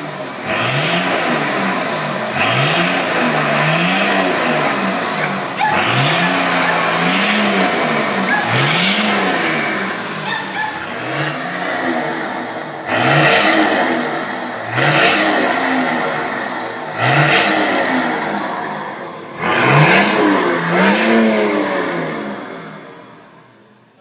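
Nissan Patrol TD6's turbo-diesel straight-six being free-revved in short blips about every two seconds through a straight-through exhaust with no muffler: a 3-inch pipe, then after a cut about halfway, a 4-inch pipe. Each rev rises and falls in pitch and is followed by a high whistle from the turbo falling away.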